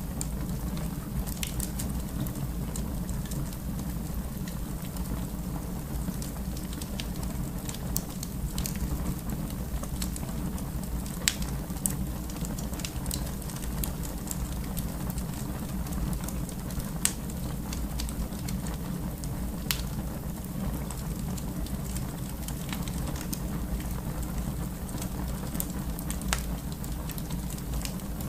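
Wood fire crackling in a fireplace: a steady low rumble of flames with scattered sharp pops and snaps, a few louder ones about eleven and seventeen seconds in.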